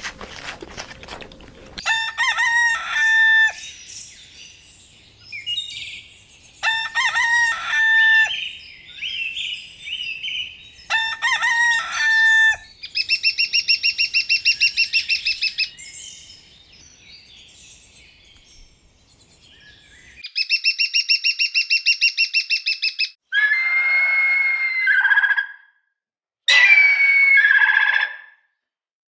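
A rooster crowing several times, each crow a separate call, alongside rapid pulsing bird calls and other fowl cries later on.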